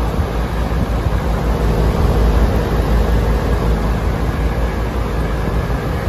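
York air-conditioning condenser running, its fan exhaust blowing up over the microphone as a steady, loud rushing rumble with a faint hum underneath.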